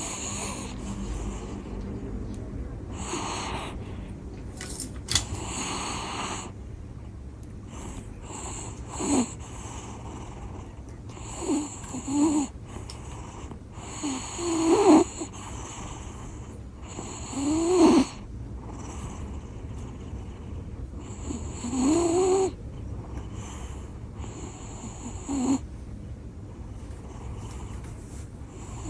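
Italian greyhound snoring loudly in its sleep, a snore every few seconds. Several snores carry a squeaky, whistling note that slides up and down in pitch.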